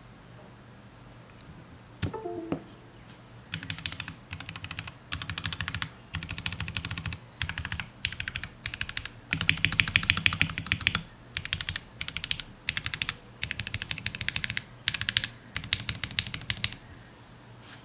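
Typing on an MW65 mechanical keyboard with lubed and filmed Gateron Ink Black linear switches, a polycarbonate plate and PBT keycaps. A single knock comes about two seconds in. From about three and a half seconds, quick bursts of keystrokes follow with short pauses between them.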